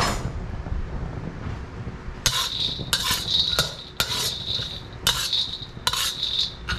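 Metal wok spatula scraping and knocking against a wok while stirring raw peanuts frying in a little oil. The strokes start about two seconds in, roughly one every half to three-quarters of a second, each leaving a short metallic ring.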